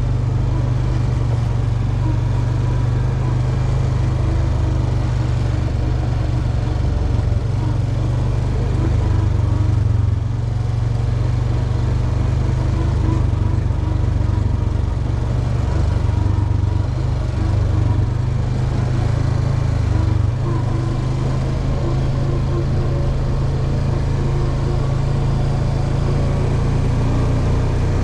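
Quad bike (ATV) engine running steadily while riding, heard from on the machine, its low drone shifting slightly in pitch now and then with the throttle.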